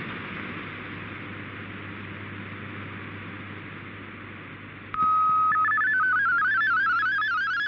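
Shortwave radio hiss for about five seconds, then a digital-mode transmission starts: a steady single tone, followed by rapidly stepping MFSK32 data tones.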